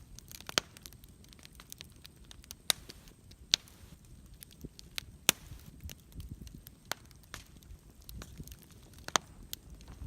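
Campfire crackling: irregular sharp pops and snaps of burning wood, with a handful of pops much louder than the rest.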